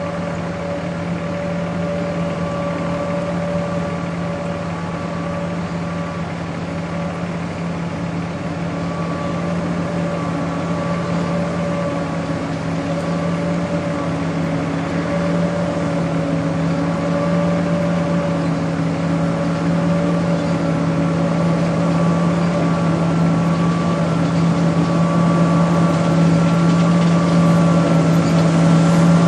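John Deere 9610 combine harvester running steadily while combining wheat, a constant engine-and-machinery drone that slowly grows louder.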